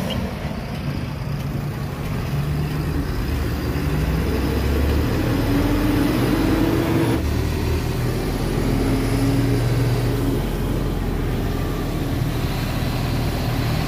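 Heavy goods truck's diesel engine and road noise heard from inside the cab while driving on the highway, the engine note shifting in pitch a few times.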